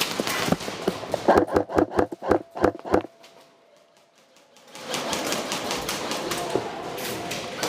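A quick run of sharp knocks, about five a second, that stops suddenly about three seconds in; the sound then falls nearly silent for over a second before a rustling haze with scattered clicks comes back.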